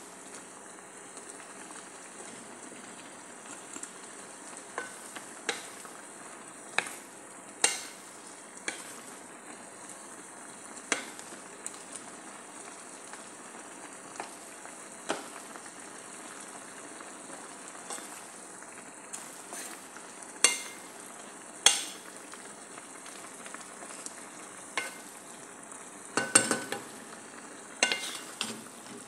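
Stir-fry vegetables sizzling steadily in sauce in a pan, with a wooden spatula stirring them and giving irregular sharp knocks against the pan, several clustered close together near the end.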